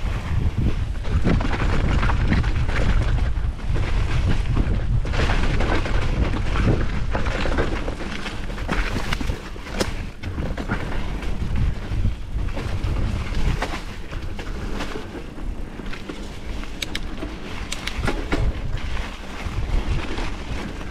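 Mountain bike riding fast along a dirt flow trail: a heavy rumble of wind buffeting the microphone, with tyre noise and scattered clicks and knocks of the bike rattling over the trail. The rumble is strongest in the first half and eases off later.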